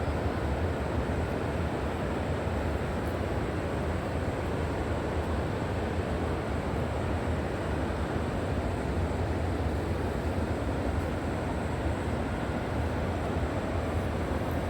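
River water rushing steadily: an even, unbroken noise, heaviest in the low end.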